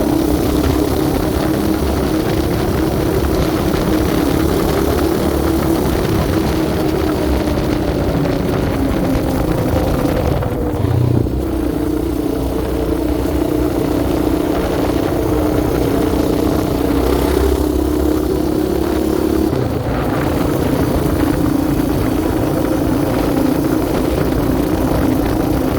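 Yamaha Raptor 700R sport quad's single-cylinder four-stroke engine running under way at fairly steady revs, with two brief throttle lifts, about ten seconds in and again near twenty seconds.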